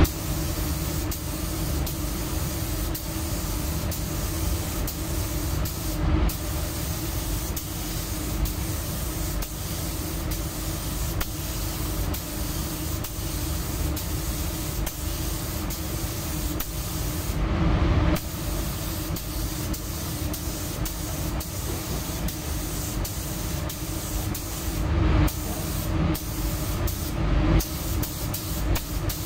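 Gravity-feed paint spray gun hissing steadily as it sprays car paint, its air set to one bar, with a few brief breaks in the spray.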